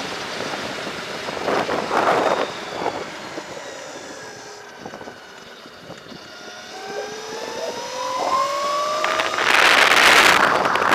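Wind buffeting the microphone of a Throne SRPNT electric motorbike on the move, in loud gusts about two seconds in and again near the end. Between them the motor's whine falls as the bike slows, then climbs steadily in pitch as it speeds up again.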